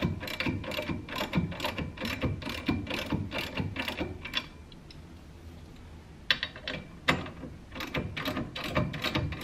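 Socket ratchet clicking in quick runs as the brake caliper's mounting bolts are wound in a little at a time, with a pause of about two seconds in the middle.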